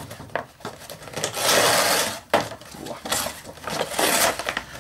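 Cardboard insert being worked off a clear plastic blister tray: card scraping and rustling against the plastic, with small clicks and knocks and a longer scrape about a second and a half in.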